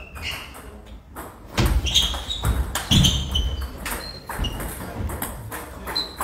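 Table tennis balls clicking off bats and tables across a hall of several tables, with short high pings, and a few louder low thumps from about one and a half to three seconds in.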